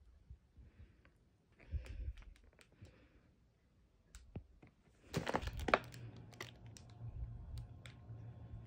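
Plastic food packaging being handled: clear plastic clamshells and bags crinkle and click against each other, with the loudest rustle about five seconds in. A low steady hum sets in just after it.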